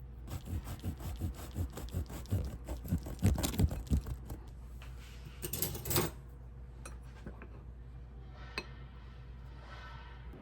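Kitchen utensils and dishes clinking: a run of quick, irregular taps, then a louder clatter about six seconds in.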